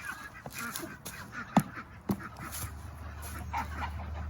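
A pumpkin being stomped on, with a couple of sharp thuds, the loudest about a second and a half in and another half a second later, as it holds together without breaking. Farm fowl call faintly in the background.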